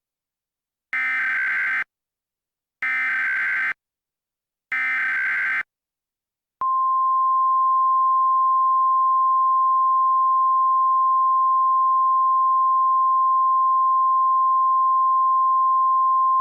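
Emergency Alert System signal: three roughly one-second bursts of the SAME digital header, a warbling two-pitch data screech, about a second apart. About six and a half seconds in, a steady single-pitch attention tone starts and holds on, marking the start of an alert, here a National Periodic Test.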